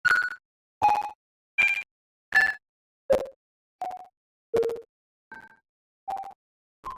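Software modular synthesizer (VCV Rack) playing short plucked-sounding synth notes on a steady pulse, about four notes every three seconds, each note at a different pitch and dying away quickly into silence before the next. The notes grow somewhat quieter in the second half.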